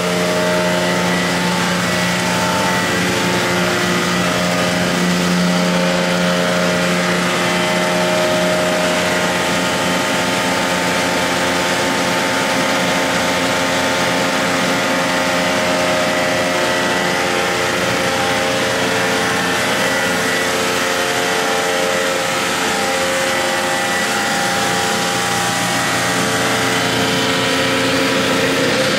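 FPEC vacuum paddle blender running under power: its electric drive motors, gear reducers and chain drives to the twin paddle shafts make a steady mechanical hum with several held tones.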